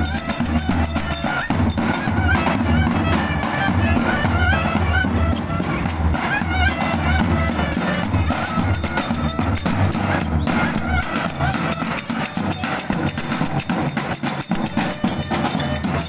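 Live Turkish Romani dance music: a clarinet playing a wavering, ornamented melody over a davul bass drum beating a steady dance rhythm.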